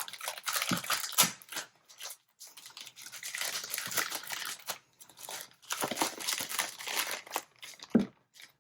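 Packaging being crinkled, rustled and torn open by hand, in irregular bursts of crackling with a few sharp clicks and short pauses.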